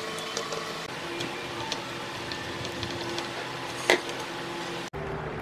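Small scattered clicks from a screwdriver and hands handling an induction cooker's copper coil and plastic housing, over a steady background hiss and a faint hum. One louder click comes about four seconds in.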